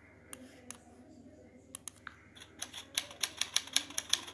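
Typewriter key-strike sound effect playing with a letter-by-letter text animation. A few scattered clicks come first, then a rapid run of keystrokes at about five a second starts just past halfway.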